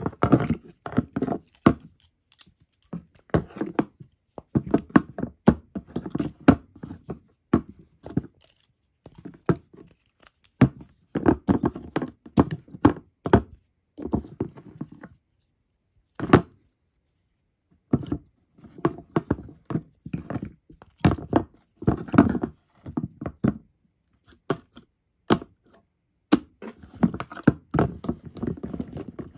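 Handmade plastic-covered toy moth figures knocked, rubbed and pushed together by hand on a tabletop: irregular bouts of clicks, thunks and crinkling plastic, with a pause of about two seconds past the middle.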